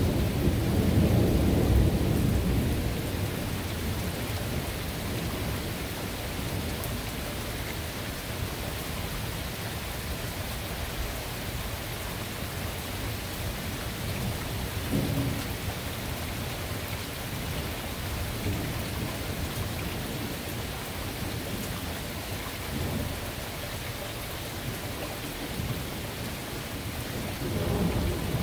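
Thunderstorm: steady rain falling, with a long roll of thunder rumbling loudest in the first couple of seconds and fading away. Fainter rumbles come back about halfway through and again near the end.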